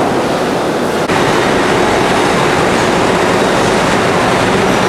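Steady, loud machinery din of a brass hot-forging workshop: an even rumbling noise with no separate press strokes standing out.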